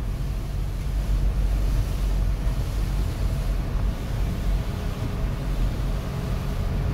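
Steady engine and road rumble inside a moving vehicle's cab, with tyre hiss from the wet road.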